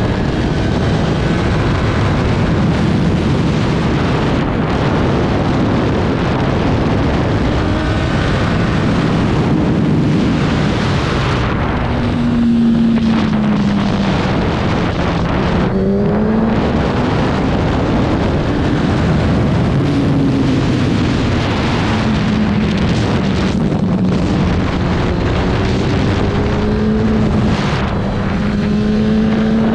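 Racing motorcycle heard onboard at speed: the engine pitch rises and falls repeatedly as the rider shifts and rolls the throttle on and off, under loud wind rush on the microphone.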